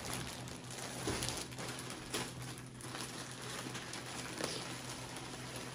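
Plastic poly mailer bag rustling and crinkling as it is opened and the plastic-wrapped clothes inside are pulled out, with a few sharper crackles.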